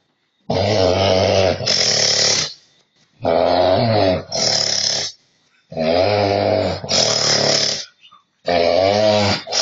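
Loud snoring, four breaths about two and a half seconds apart. Each is a low, rattling, pitched snore followed by a higher hissing breath.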